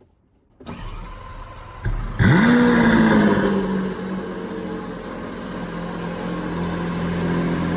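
Lamborghini Aventador V12 starting: about a second and a half of cranking, then the engine catches with a loud rev flare and settles into a steady high idle that slowly eases down.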